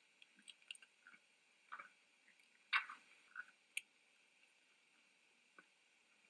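Faint, scattered crunches and rustles of red deer feeding and stepping around a hay pile, the loudest crunch about three seconds in and a sharp click a little later.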